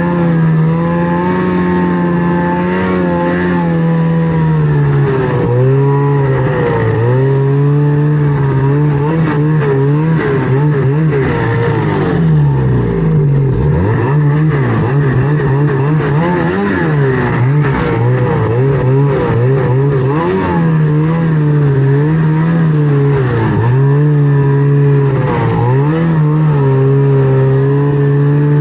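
Snowmobile engine running under way, its pitch holding steady and then dropping and climbing again many times as the throttle is let off and opened.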